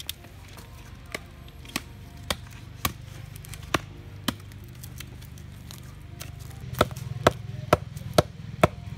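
Bamboo stakes pounded into the ground with a wooden stick: sharp wood-on-wood knocks, scattered about once a second at first, then a louder run of five about half a second apart near the end.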